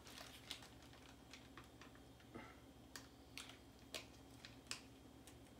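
Faint, scattered small clicks and crinkles of a plastic zip-top bag being handled and pressed shut, about a dozen soft ticks spread irregularly over a near-silent background.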